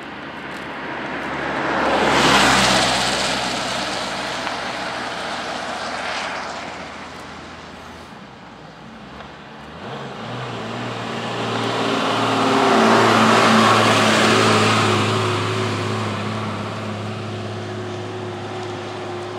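Motor vehicle engine and road noise. The noise swells loudly twice, once near the start and again in the middle. From about halfway through, a steady engine hum runs underneath.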